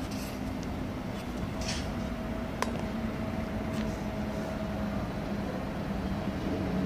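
Steady hum of an electric train drawing closer along the platform track, with a few brief hisses and a single sharp click about two and a half seconds in.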